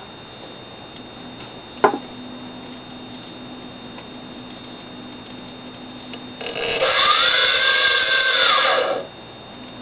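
Small brushless outrunner motor (Turnigy TR28-26B) spinning up unloaded on a test rig as the throttle signal passes its start point, whirring for about two and a half seconds with a pitch that rises, holds, then falls before it stops. Before it, a single sharp click about two seconds in and a low steady hum.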